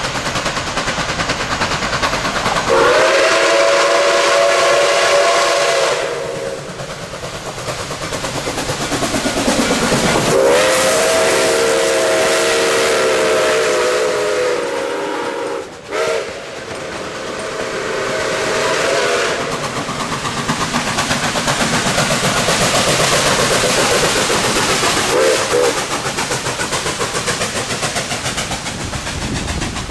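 Nickel Plate Road 765, a 2-8-4 Berkshire steam locomotive, sounding its steam whistle in two long blasts, then the rumble and clatter of the locomotive and its passenger cars rolling close past, with a brief whistle note near the end.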